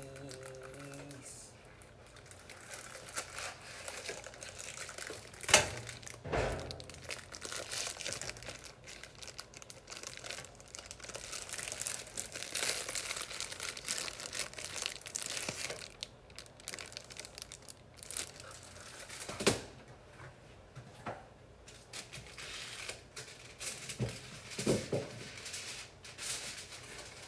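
Plastic packaging of Pillsbury turkey-shaped cookie dough crinkling and tearing as the box and tray are opened and handled, with a few sharp clicks, the loudest about five and a half seconds in and another near twenty seconds in.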